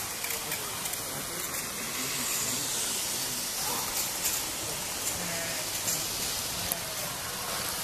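Steady rushing whir of 00 gauge model trains running on the layout's track, with faint voices in the background.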